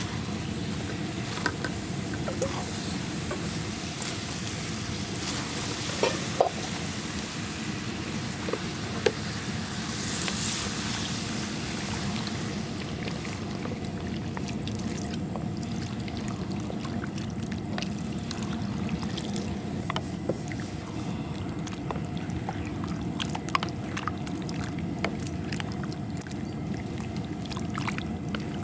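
Chicken stew cooking in a cast-iron pot-lid griddle as liquid is poured in, with sharp knocks and scrapes from a wooden spatula now and then, over a steady low rumble.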